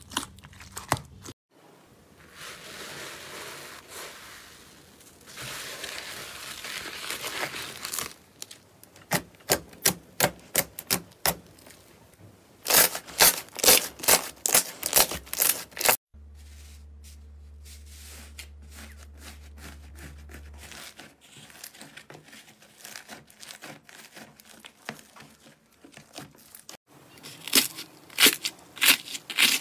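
Hands squishing, pressing and stretching slime, some of it filled with foam beads. It makes runs of crackling and sharp popping clicks, with softer squelching stretches between. A low steady hum sits under a quieter stretch in the middle.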